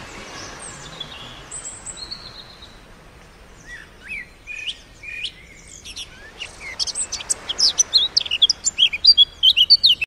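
Several birds chirping and singing: a few scattered whistled notes at first, building over the last few seconds into a dense, loud run of quick chirps.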